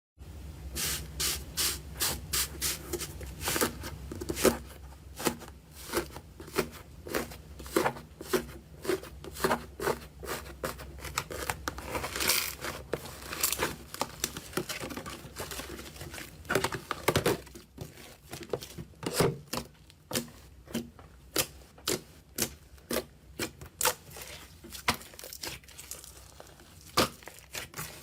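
Slime being worked by hand, giving off an irregular run of sharp, crackling pops and clicks, a few each second.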